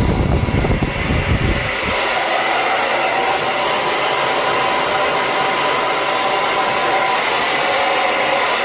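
Lange Soleil hair dryer running with a steady rush of air and a faint whine. A deep rumble under it drops away a little under two seconds in.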